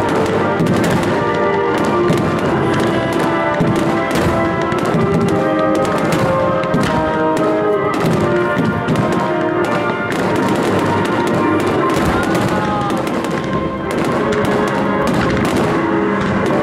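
Fireworks shells bursting one after another with crackle, over loud music with held notes: the dense barrage of a fireworks display's finale.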